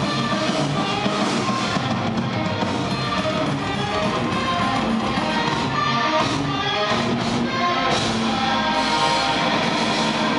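A heavy metal band playing live: distorted electric guitars over a drum kit, steady and loud, recorded from within the audience at a concert.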